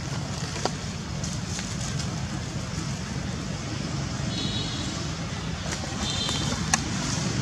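Steady low outdoor rumble with a few faint clicks. Two brief, faint high-pitched calls come a little past halfway and again near the end.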